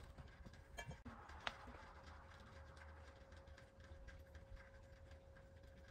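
Near silence: faint room tone with a steady faint hum and a couple of small clicks about a second in, a metal measuring spoon tapping against glass cups and oil bottles as two-stroke oil is measured and stirred into fuel.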